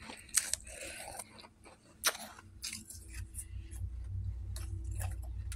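Freezer frost being crunched between the teeth: a series of crisp, irregular crunches. A low steady hum comes in about halfway through.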